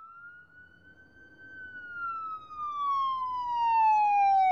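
Siren-like synthesized intro sound effect: one pitched tone that rises a little, then glides slowly down in pitch while growing steadily louder.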